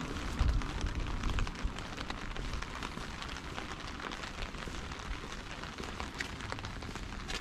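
Rain pattering steadily, with many small ticks of drops over an even hiss and a low rumble that is heavier in the first second or two.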